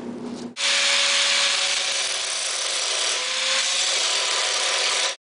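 Angle grinder running with its disc biting into a rusty steel beam, a steady harsh hiss of the wheel on the metal with a faint motor whine underneath. It starts abruptly about half a second in.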